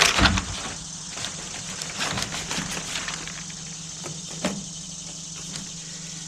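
Scattered rustling and light clicks from handling the parts and packaging of a wiring harness kit, over a steady low hum.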